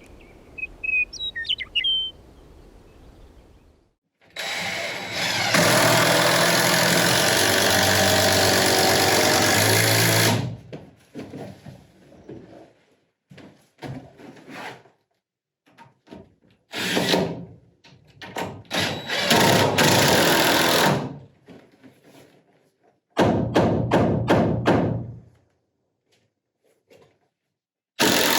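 A power tool's motor running in bursts: one long run of about six seconds, then several shorter ones, each starting and stopping abruptly.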